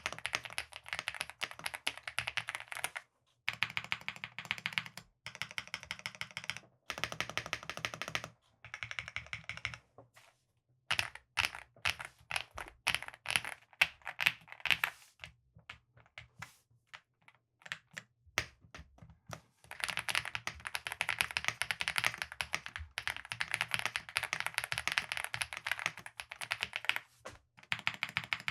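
Chilkey ND75 mechanical keyboard being typed on in quick runs of keystrokes, in several separate takes with short pauses between them.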